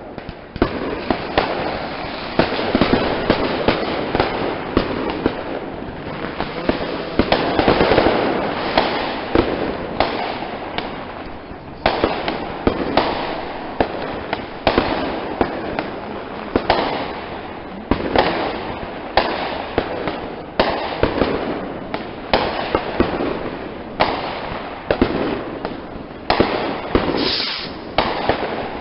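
Consumer fireworks going off in rapid succession: sharp bangs several a second over repeated swells of crackling.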